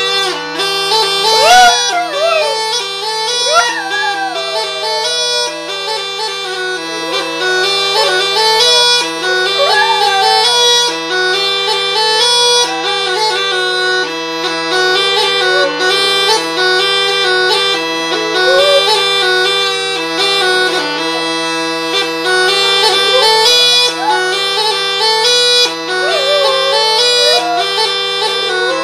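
Baltic bagpipes playing a melody over one steady low drone, while a dog howls along several times in long, rising and falling wails.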